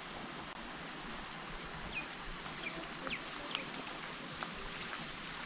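Rural outdoor ambience: a steady background hiss, with a few short, high bird chirps between about two and four seconds in.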